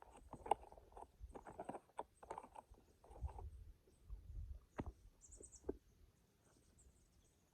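A mouthful of granola and blueberries being chewed close to the microphone: irregular crunching and mouth sounds with a few sharp clicks, dying away over the last second or so.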